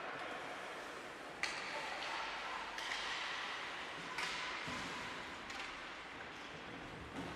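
Ice hockey on-ice sounds in an echoing arena: skate blades scraping and carving the ice and sticks clacking against the puck, several sharp clacks and scrapes about a second or so apart, the sharpest about a second and a half in.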